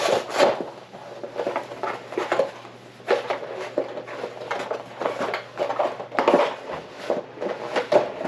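Cardboard trading-card gift-set box being opened by hand and its fold-out cardboard insert pulled out: a string of irregular scrapes and rustles of card.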